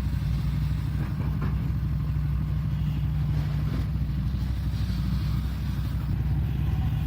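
Shantui excavator's diesel engine running steadily at a working speed.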